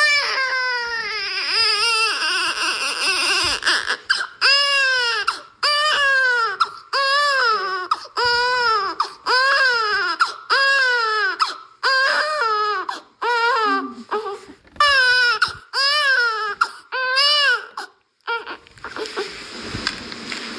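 Infant crying: a long falling wail, then a steady run of short wails about one a second, each rising and falling in pitch. The cries stop near the end, leaving a hiss.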